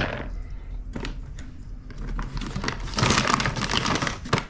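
Plastic bag crinkling and rustling as it is handled, loudest near the end, with a sharp click at the start.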